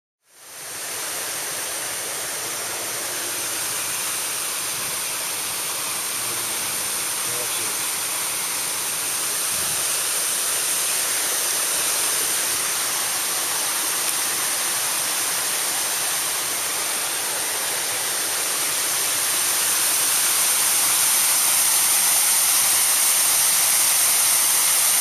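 Steady rush of water from a small waterfall in an irrigation canal. It fades in at the start and grows louder about twenty seconds in.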